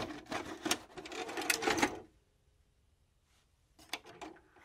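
A VCR's tape mechanism clattering and clicking as it engages playback: a quick run of mechanical clicks for about two seconds, then near quiet, then a few more clicks near the end.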